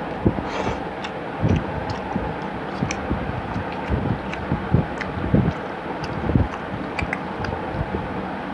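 Close-up eating sounds: chewing and wet mouth clicks, with fingers squishing and mixing rice and curry on a steel plate, as irregular small clicks and soft thumps over a steady background hiss.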